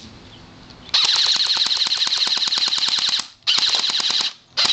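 Airsoft AK-47 rifle firing on full auto in three bursts: a long burst of about two seconds starting a second in, a short burst, and another starting near the end, each a rapid even string of shots.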